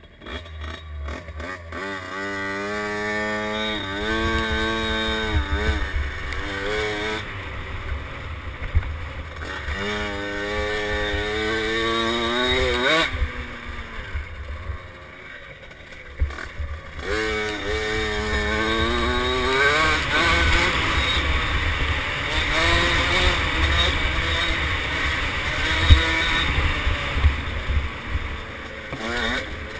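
A 50cc mini dirt bike engine being ridden, revving up in repeated climbing sweeps and easing off between them.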